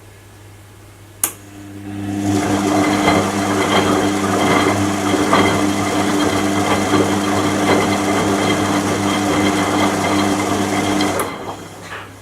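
Washing machine motor clicking on, running with a loud, rattly whir for about nine seconds, then clicking off and winding down.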